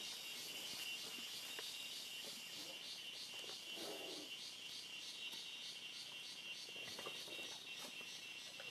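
Steady chorus of forest insects, a high, rapidly pulsing trill, with a few faint rustles of vegetation.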